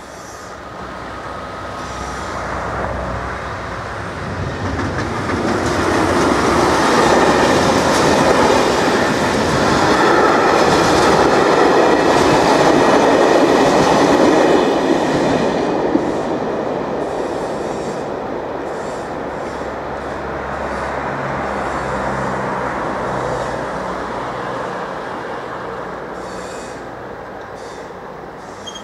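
A train passing over a railway level crossing. Its rolling noise grows louder, stays loudest for several seconds around the middle, then fades as the train moves away.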